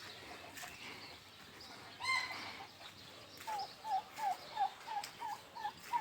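Farmyard fowl calling from a chicken coop and aviary: one loud call about two seconds in, then a quick run of about ten short calls at roughly three a second.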